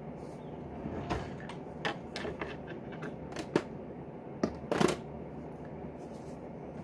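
Close handling of paper and small objects on a desk: a run of light taps, clicks and rustles, with a louder, longer rustle about five seconds in.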